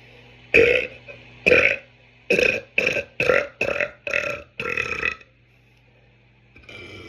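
A man burping eight times in a row, loud short burps that come faster after the first two, the last one a little longer.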